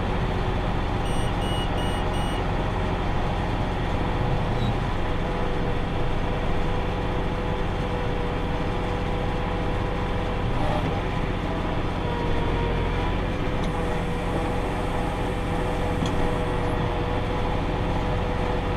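Tractor pulling a round baler, its engine and the baler running at a steady pace with a constant hum. A short run of four quick beeps sounds about a second in.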